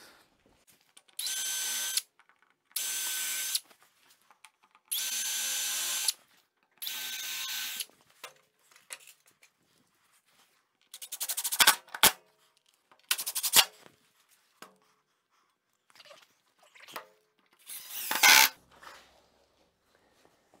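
Cordless drill running in four steady bursts of about a second each, countersinking holes, then in shorter bursts with rapid clicking as screws are driven into the wood.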